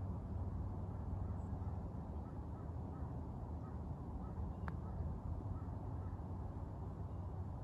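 A steady low rumble, with faint short bird calls repeating about twice a second. About halfway through comes a single sharp click: a putter striking a golf ball.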